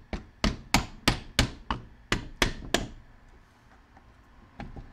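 A soft-faced mallet with yellow and red plastic heads strikes the metal housing of an old Milwaukee pneumatic palm sander about nine times in quick succession, roughly three blows a second, then stops. The blows are tapping a press-fit part in the sander loose.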